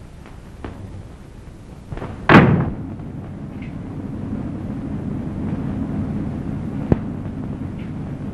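A single loud crash about two seconds in that dies away within half a second, followed by a steady low noise.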